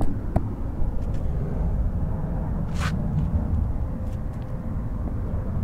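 Steady low outdoor rumble with a few faint clicks and one short hiss about three seconds in.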